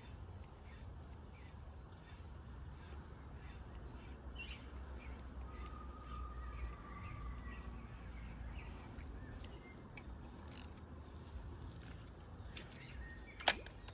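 Faint chirping of insects, with a few bird chirps, over a steady low rumble of outdoor noise; a single sharp click about a second before the end.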